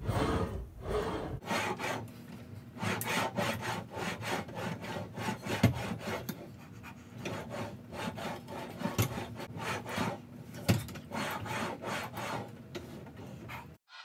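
Ab Coaster knee carriage sliding back and forth along its curved rails during a set of crunches, repeated rubbing strokes about once a second that cut off suddenly near the end.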